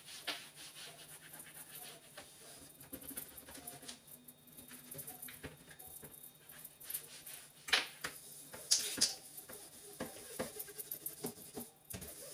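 A dampened non-scratch scouring pad scrubbing the metal-lined base of a kitchen under-sink cabinet: soft rubbing strokes, with a few louder swipes in the second half.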